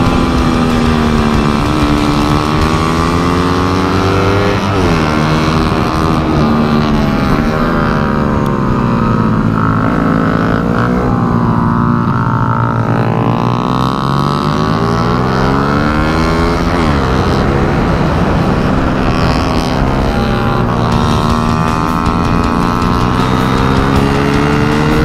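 Race motorcycle engine running hard on a circuit, its pitch climbing and falling again and again as it accelerates and slows, with a deep drop about twelve seconds in.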